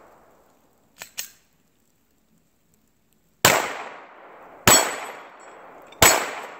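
Three 9mm Glock 17 pistol shots, about a second and a quarter apart, starting just past halfway through, each with a tail of echo. Two faint clicks come about a second in.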